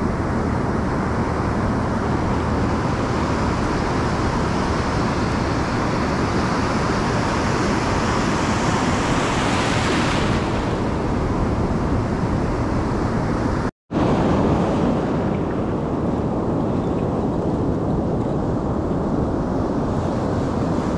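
Ocean surf washing in steadily, with wind on the microphone. A wave surges and hisses up about halfway through. The sound cuts out for a split moment about two-thirds of the way in.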